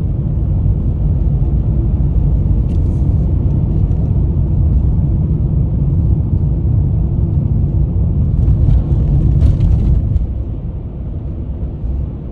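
Steady low rumble of road and engine noise inside a moving car's cabin, dropping a little about ten seconds in.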